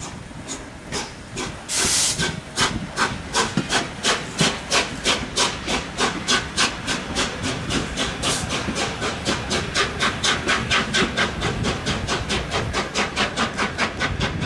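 Three-cylinder exhaust of an LNER Peppercorn A1 steam locomotive, beating as it pulls a train away. The beats quicken to about four a second and fade near the end, after a loud burst of steam about two seconds in.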